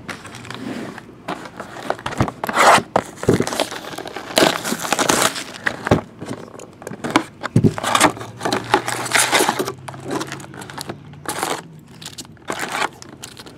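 Plastic shrink-wrap on a cardboard trading-card box being slit with a utility knife, then torn and crinkled off and the box opened: a continuous run of irregular crinkles, tears and rustles.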